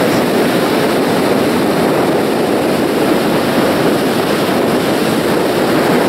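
Sea surf breaking and washing onto the beach, a steady loud rush of water without a break.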